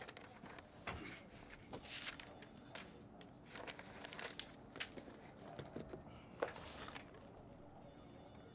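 Soft footsteps and shuffling movement in a small room, a few irregular light sounds over a faint steady hum.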